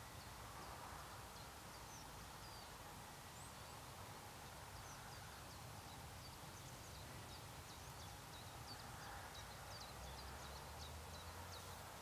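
Small birds chirping faintly, short high calls that are sparse at first and come thick and fast from about halfway in, over a low steady rumble.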